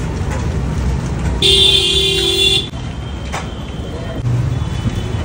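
A vehicle horn sounds once for about a second, starting about a second and a half in, over a steady rumble of street traffic.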